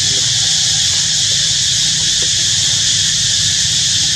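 Steady shrill insect chorus droning without a break, with a low rumble underneath and a few faint short squeaks.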